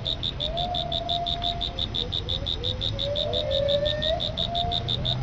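Tropical forest ambience: a fast, even pulsing call high up, repeating about six times a second, with sliding whistle-like calls lower down, the lower calls coming more often in the second half.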